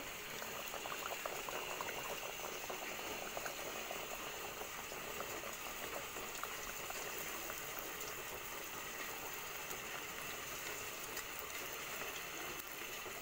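Mangalore bun dough deep-frying in hot oil in a kadai: a steady sizzle with dense crackling as the oil bubbles around it.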